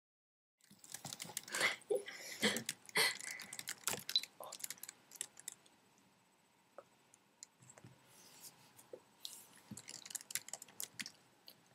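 Irregular clicks and rustling close to a webcam microphone, starting about half a second in, dense for the first few seconds, sparse in the middle and busier again near the end.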